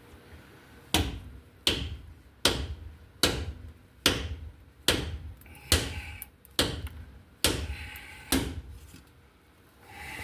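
Hammer blows struck through a splitting wooden block to straighten an oil pan, ten strikes at a steady pace of a little over one a second.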